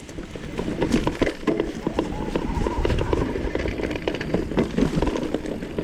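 Mountain bike clattering and knocking rapidly over rough trail ground, frame and chain rattling with each bump, over a low wind rumble on the microphone. A faint brake squeal rings through partway in.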